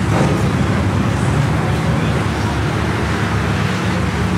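Car engines idling with a steady low drone.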